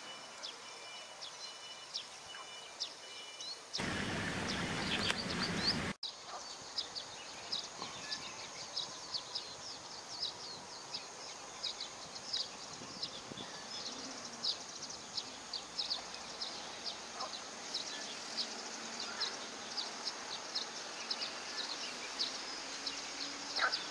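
Many short, high chirps from small birds, irregular and packed closer together in the second half. About four seconds in, a loud rushing noise cuts across them for two seconds and stops abruptly.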